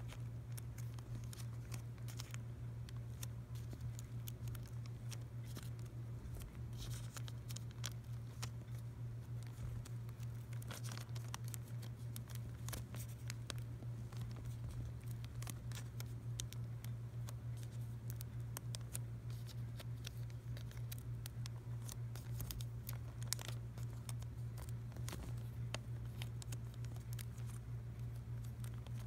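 Vinyl LP jackets in clear plastic outer sleeves being flipped through by hand: plastic crinkling and cardboard sliding against cardboard, with many small irregular clicks. A steady low hum runs underneath.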